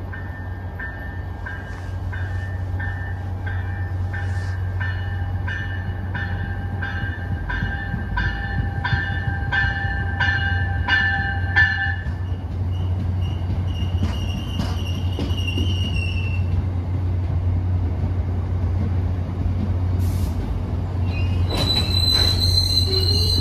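MBTA commuter rail train pulling into the station cab-car first, under a steady low rumble. Its bell rings about twice a second until the cab car passes, then the bi-level coaches roll by, and a loud high squeal starts near the end.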